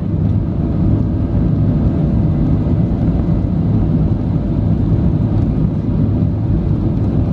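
Steady low rumble of a Boeing 737's jet engines and airframe, heard inside the passenger cabin as the airliner rolls slowly along the runway.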